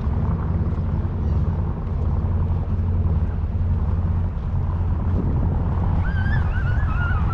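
Canal cruise boat's engine running with a steady low rumble. A short wavering high-pitched call sounds about six seconds in.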